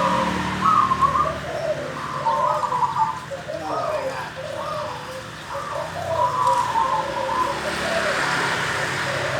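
Zebra dove (perkutut) cooing: a quick run of rolling coo notes that alternate between a lower and a higher pitch.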